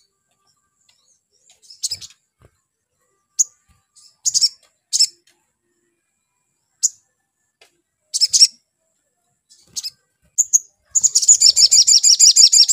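Male olive-backed sunbird giving scattered single sharp, high chirps. About eleven seconds in it breaks into a loud, fast trill of rapidly repeated high notes.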